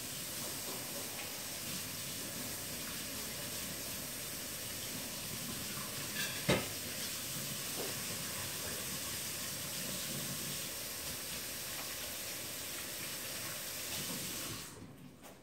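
A steady hiss that cuts off abruptly near the end, with one sharp click about six and a half seconds in.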